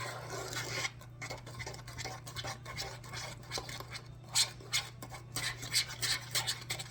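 A utensil stirring and scraping thick brownie batter around the bottom of a plastic microwave breakfast maker, in irregular strokes. There are a few sharper taps against the container from about four seconds in.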